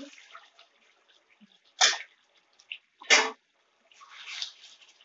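Two brief loud bursts about a second apart, then a spoon stirring and scraping through thick chicken curry in the pan.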